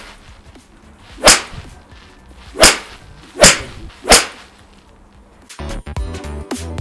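Four sharp cracks of golf clubs striking balls at a driving range, the first about a second in and the last about four seconds in. Background music comes in near the end.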